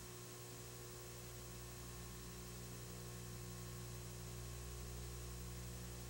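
Quiet, steady electrical hum with a faint even hiss underneath, and nothing else.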